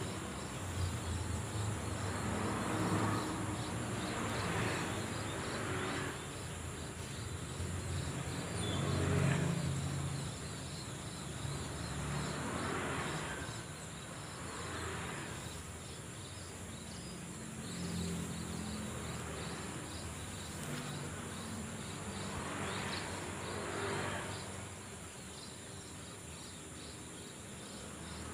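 A steady, high-pitched insect chorus runs throughout over a low background rumble that swells and fades every few seconds.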